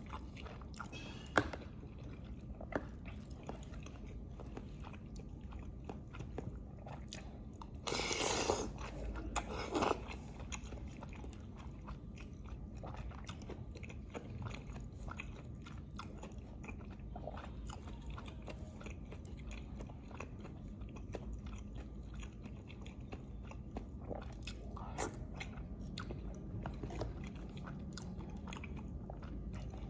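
Close-miked eating of lontong with green chilli: steady chewing and biting with many small wet clicks. A louder, noisier stretch of crunching comes about eight seconds in and lasts about two seconds.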